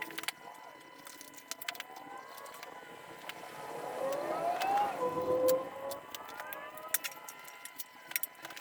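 Siren wailing, rising and falling in pitch, loudest about four to five and a half seconds in, with scattered sharp clicks.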